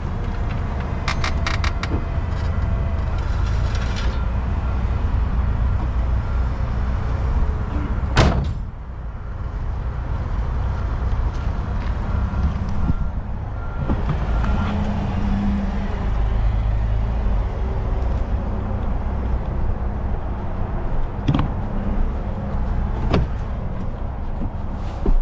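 Forklift engine running steadily, with scattered metal clicks and a single sharp clank about eight seconds in.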